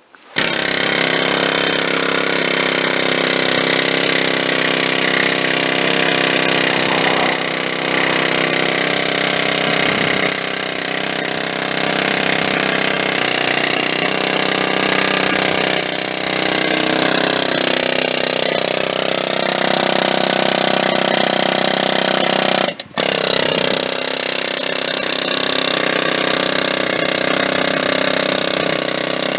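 Sunex SX243 long pneumatic air hammer running continuously, pounding on the top of an 8 ft grounding rod to drive it into the ground: a steady, ringing hammering. It starts just after the beginning, cuts out for an instant about 23 seconds in, then runs on.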